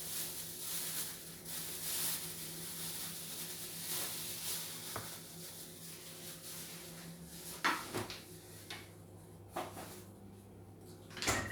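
Kitchen handling sounds: a soft hiss over the first few seconds, then a handful of separate knocks and clacks of dishes and kitchen fittings, the loudest near the middle and at the end, over a steady low hum.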